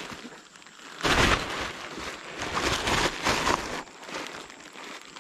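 Plastic bag rustling and crinkling as it is handled, loudest from about a second in for nearly three seconds.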